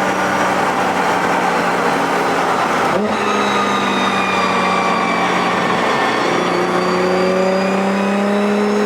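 Nissan GT-R engine running under load with tyre and road noise, heard from inside the cabin. A sharp click and a change in engine note come about three seconds in, and the note climbs slowly in the last few seconds.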